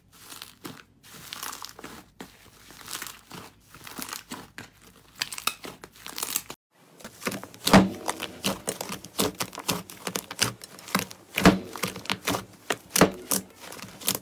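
Fluffy slime being squished, pressed and pulled by hand, giving a quick run of crackling, crinkling clicks. There is a short break about six and a half seconds in, after which the clicks are louder.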